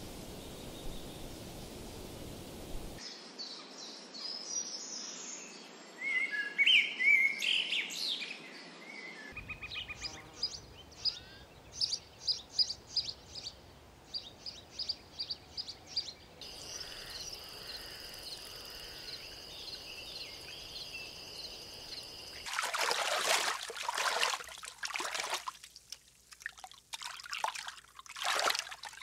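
Nature ambience in several spliced segments. First a soft hiss, then bird calls, then a run of short chirps about two a second, then two steady high tones. About 22 seconds in come loud splashes of water.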